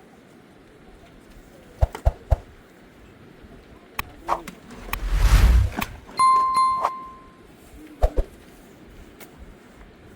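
A few sharp knocks, a brief rushing swell, then a single metallic ding that rings and fades over about a second, followed by two more knocks.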